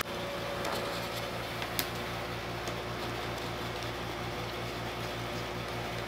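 Steady low machine hum of room noise, with a single faint click about two seconds in.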